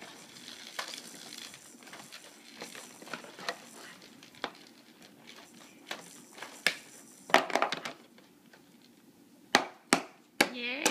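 Plastic toys on a baby activity center being handled by a baby: scattered clicks, knocks and clatters, with a denser rattling about seven seconds in and three sharp knocks near the end. A short voice sound comes right at the end.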